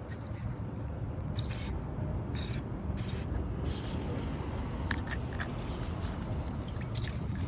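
An aerosol can of WD-40 spraying in three short hisses onto a seized screw during an alternator job, over a steady low rumble.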